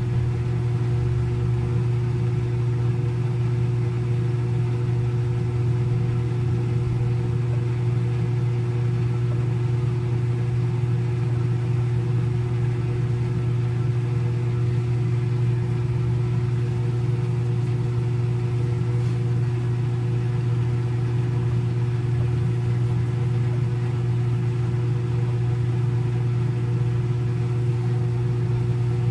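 Front-load washing machine spinning its drum at a constant high speed in the spin cycle: a steady, unchanging hum with a deep drone and a fainter higher tone above it.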